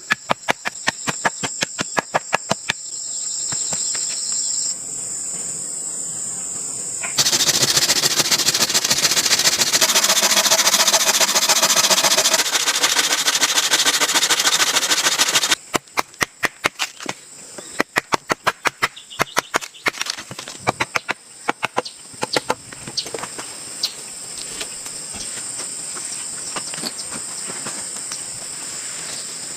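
Insects or crickets buzzing steadily in a forest, with many sharp knocks in quick succession. From about seven seconds in, a loud rushing noise runs for about eight seconds and cuts off suddenly.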